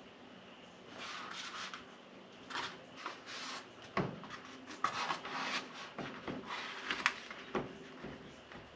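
A window louver being handled and pressed against a van's rear door window: irregular rubbing and scuffing with a few sharp knocks as it is shifted into place.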